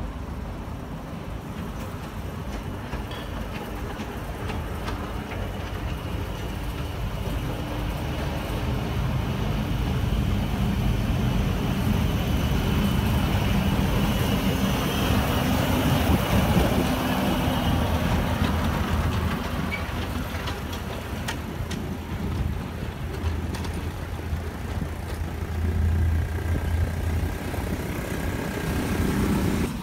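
7¼-inch gauge miniature diesel-outline shunting locomotive running along the track, its drive hum and wheel rumble on the rails. It grows louder as it comes close and passes about halfway through, then eases off a little as it moves away.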